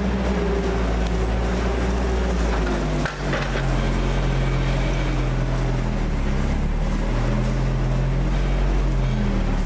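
Bucher Vaslin wine press running with a steady mechanical hum while grapes are fed into it. The hum briefly drops about three seconds in, then carries on.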